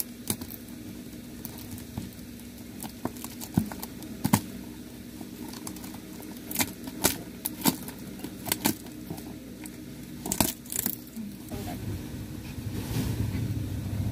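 Scissors snipping and the plastic wrapping of a cardboard balikbayan box crinkling and tearing as it is cut and pulled open: scattered sharp snaps and crackles over a steady low hum. Near the end a low rumble builds up.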